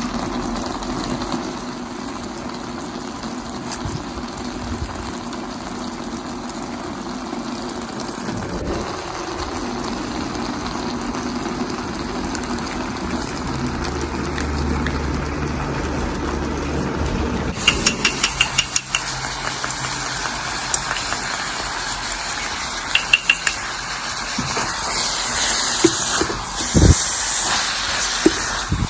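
Food cooking in liquid in a pan: a steady hiss of simmering and sizzling. About two-thirds of the way through comes a quick run of clicks, and near the end the hiss brightens and there are a few sharp knocks.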